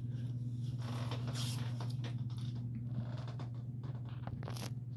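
A steady low hum with faint rustles and a few light clicks of hands handling a rubber axle boot and plastic suspension parts on an RC truck.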